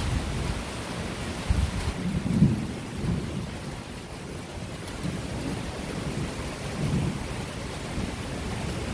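Steady hiss of rain, with low rumbles swelling and fading now and then, the strongest about two and a half seconds in.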